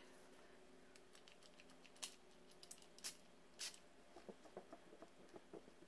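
Small perfume sample atomizer spritzing onto a paper card: a few short, faint hissing sprays, followed by light clicks of the vial and card being handled.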